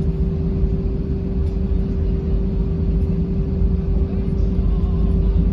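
Steady cabin noise of an Airbus A320 rolling on the ground after landing: a low rumble with a constant hum from the idling engines and air systems.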